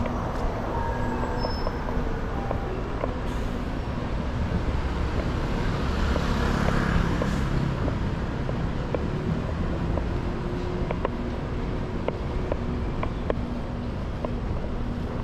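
City street traffic: a steady rumble of passing cars and buses, swelling about six to seven seconds in as a vehicle passes close.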